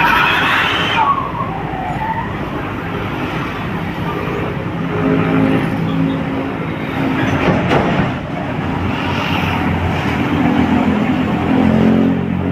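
Small motorcycle engine running, its pitch stepping up and down several times as the throttle is varied.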